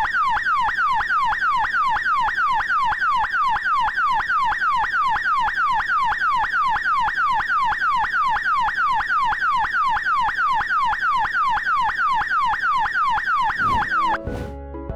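iotaCAP123 12 V electronic security siren sounding its standard alarm tone: a loud, fast falling sweep repeated about three times a second. It cuts off suddenly about a second before the end.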